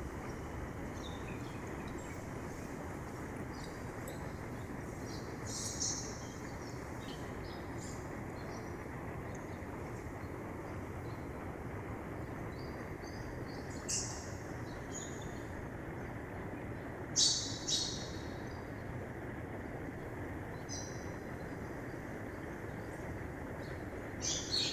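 Mountain river rushing steadily, with a few short bird calls chirping above it; the loudest two come close together about two-thirds of the way through.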